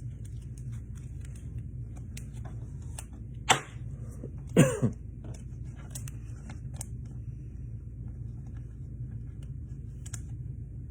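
A man clears his throat: a short sharp sound about three and a half seconds in, then a louder, falling throat-clearing sound a second later. Soft scattered clicks and rustles of trading cards and packaging being handled sit over a steady low hum.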